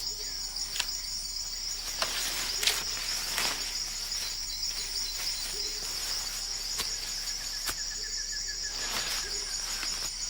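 Amazon rainforest ambience: a steady, high-pitched insect drone, with scattered clicks and snaps and a faint chirping call in the second half.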